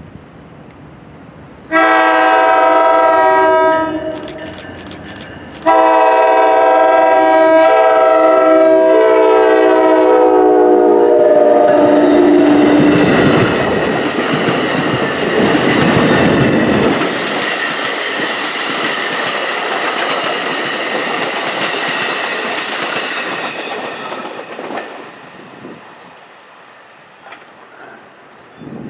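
Horn of a North Jersey Coast Line (NJ Transit) commuter train: one blast, then a longer blast whose pitch drops as the train passes. The train then runs by with wheel noise on the rails, fading away near the end.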